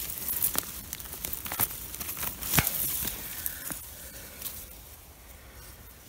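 Dry grass stems and leaf litter rustling and crackling with a few sharp snaps as a hand pushes them aside and pulls an aspen bolete mushroom out of the ground; busiest in the first few seconds, dying down toward the end.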